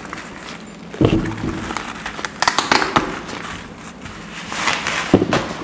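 Bubble wrap rustling and crackling as a wrapped picture frame is cut free and handled, with a single thump about a second in.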